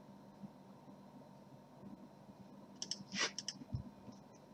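Faint room tone, then a quick cluster of computer mouse clicks about three seconds in.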